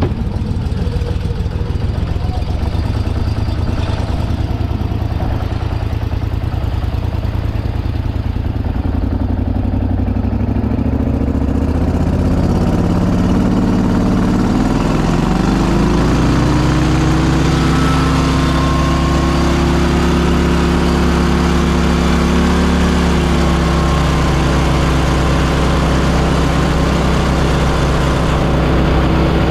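Mud boat engine running under way; about twelve seconds in it speeds up, its pitch rising over a few seconds, then holds a steady higher speed.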